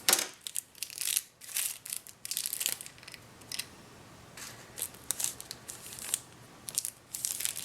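Plastic packaging crinkling and rustling in irregular short bursts as it is handled.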